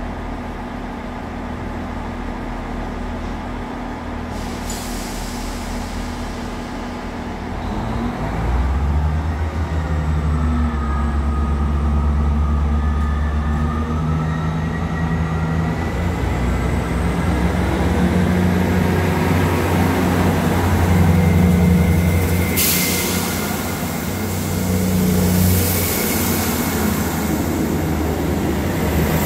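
A Class 159 diesel multiple unit's underfloor diesel engines idle, then rev up about eight seconds in as the train pulls away. A high whine rises in pitch as it gathers speed, and a hiss sets in suddenly a little over twenty seconds in as the carriages run past.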